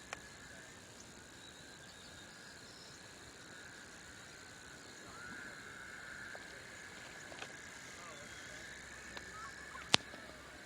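Faint, unidentified outdoor night noises: a steady high-pitched chorus with some wavering calls in it, and one sharp click near the end.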